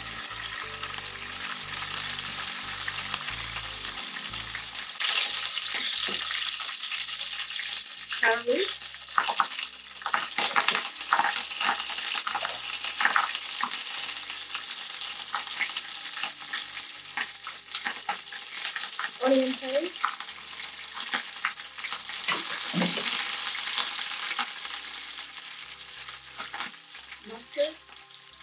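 Ginger-garlic paste frying in hot oil in a non-stick pan, a continuous sizzle that grows louder about five seconds in as leaves and green chillies go in. A wooden spatula stirs and clicks against the pan throughout.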